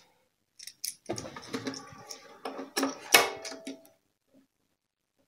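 A Wittner light-alloy violin tailpiece and its tailgut being handled and fitted against a violin: light clicks and clatter, with one louder knock about three seconds in, followed by a short ringing tone.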